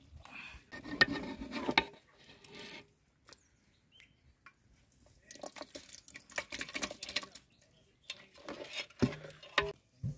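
Metal cookware and utensils clinking and scraping in three short bursts, with two sharp clanks about a second in, as the finished mutton gravy is handled off the heat.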